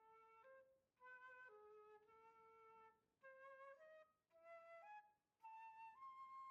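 Faint solo flute playing a slow melody of held notes that step up and down, in short phrases broken by brief pauses.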